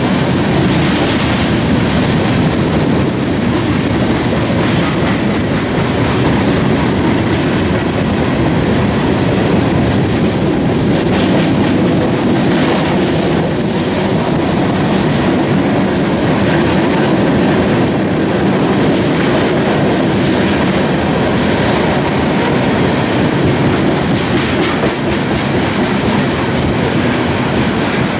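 Loaded coal hopper cars of a freight train rolling steadily past, steel wheels clacking over the rail joints with a continuous rumble. Brief high wheel squeals come through several times.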